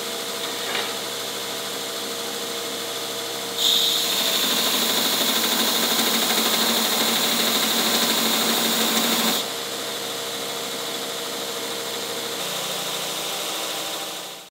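Wilton Square Wheel 2x72 belt grinder running at full single speed, its 1725 RPM motor directly driving a 10-inch drive wheel at about 4500 surface feet per minute. About three and a half seconds in, mild steel is pressed to the belt and ground for about six seconds, a louder hissing grind over the motor. The belt then runs free again until the sound stops suddenly.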